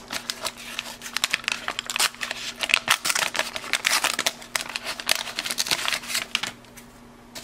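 Waxed paper wrapper of a 1981 Topps football card pack crinkling and crackling as it is peeled open and the stack of cards slid out. The crackling stops about a second before the end.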